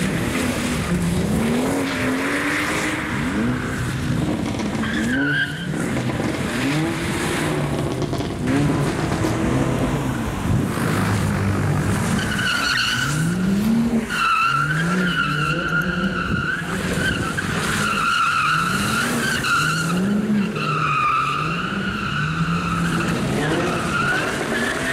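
A tuner car doing donuts, its engine revving up and down over and over, about once a second, with the hiss of skidding tyres. From about halfway through, the tyres squeal in a steady high tone that breaks off and comes back several times.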